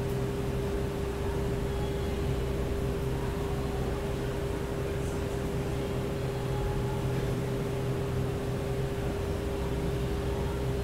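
Steady machine hum: a constant mid-pitched tone over a lower drone and a faint hiss, unchanging in level.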